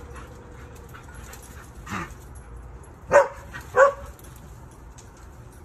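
A dog barking during play: one softer bark about two seconds in, then two loud barks a little over half a second apart.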